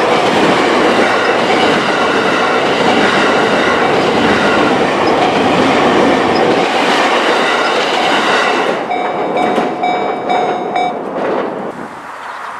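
E231-series electric commuter train passing close by, its wheels clattering over the rail joints. The train noise falls away near the end, and the level crossing's warning bell rings in short repeated strokes for about two seconds, then stops.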